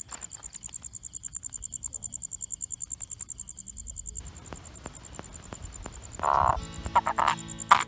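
Crickets chirring steadily at a high pitch in the night. About six seconds in comes a louder burst, then a run of rapid pulsed sounds near the end.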